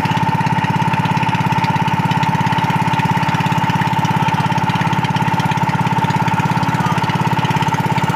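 Small boat's engine running steadily at a constant speed, with a fast, even pulse and a steady whine above it.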